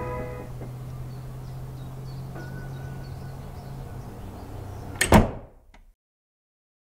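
Low steady drone as the last music notes fade, then about five seconds in a single loud slam that swells, rings briefly and dies away into silence.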